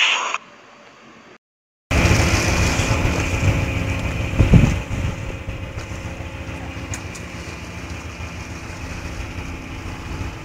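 After a moment of silence, a fishing boat's engine runs steadily at idle under wind and sea noise, with one louder knock about four and a half seconds in.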